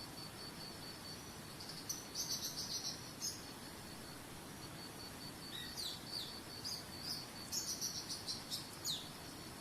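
Songbirds singing in two bouts of rapid high chirps with a few quick falling whistles, over a steady, evenly pulsing high trill like a cricket's and a faint, even hiss.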